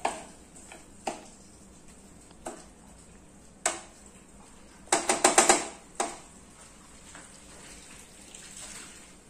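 Wooden spatula stirring diced potatoes in a metal kadai, knocking and scraping against the pan every second or so. There is a quick run of loud clattering knocks about five seconds in, then the stirring stops.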